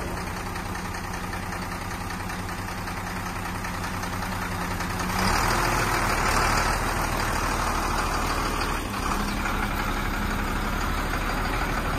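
Sinotruk HOWO 8x4 dump truck's diesel engine idling steadily, growing louder and noisier about five seconds in.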